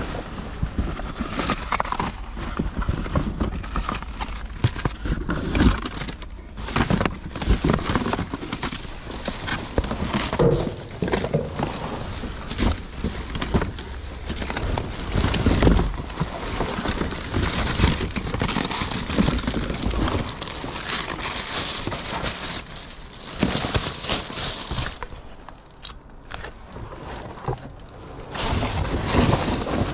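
Cardboard boxes and plastic wrap being rummaged through and shifted by hand: continuous rustling, crinkling and scraping of cardboard with frequent knocks, easing off for a few seconds near the end.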